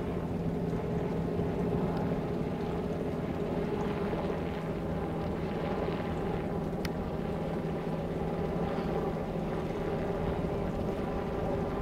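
Engine running steadily, a constant droning hum with a light wind rush; one faint click about seven seconds in.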